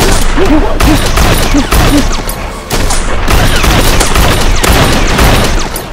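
Rapid automatic blaster fire: a dense, loud run of shots with heavy thuds, broken by a short pause a little under three seconds in.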